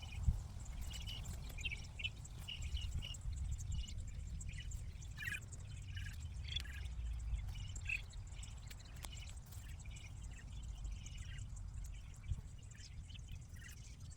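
Faint outdoor ambience: a steady low rumble of wind on the microphone with scattered short bird chirps, and a few small clicks and rustles.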